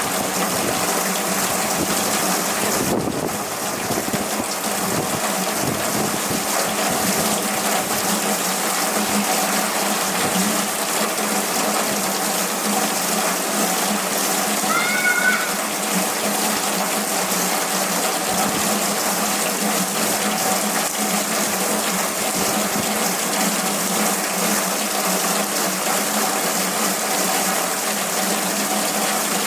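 Hurricane rain pouring down steadily and heavily, with wind, making an even rushing wash of water. About halfway through there is a short pair of high rising chirps, and a faint steady hum runs underneath.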